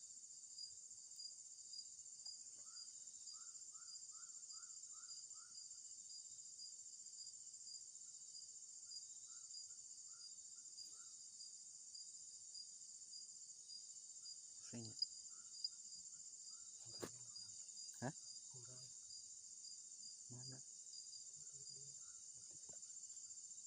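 Faint, steady chorus of crickets, high-pitched with a fast regular pulse. A short run of about eight quick chirps comes a few seconds in.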